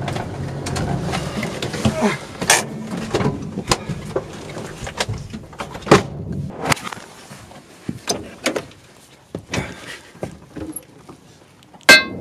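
An old van's engine runs at first and fades out. A scattered series of sharp clicks and knocks follows, from footsteps and the van's door being handled, ending in a loud sharp knock near the end.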